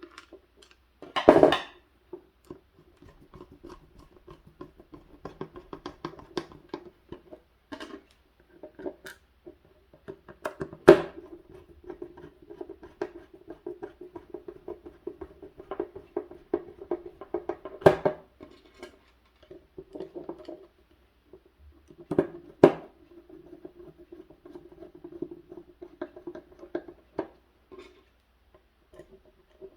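Screws being tightened on a replacement mains plug: small clicks and scratching of the screwdriver and plastic plug body, with a few louder knocks, over a faint steady tone that comes and goes.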